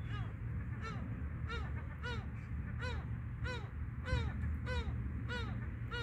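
An animal giving about nine short, arched calls, one roughly every two-thirds of a second, over a steady low rumble of wind on the microphone.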